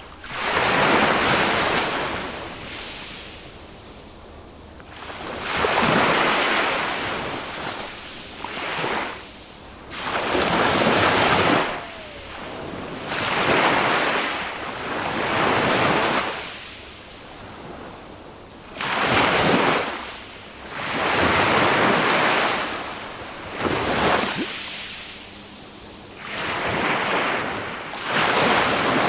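Small waves of a calm Mediterranean sea breaking on a sandy beach and washing back, a rushing surge every two to three seconds with quieter hiss between.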